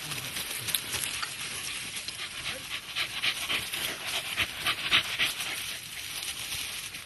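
A hunting dog panting hard close by, in quick breaths of about three a second.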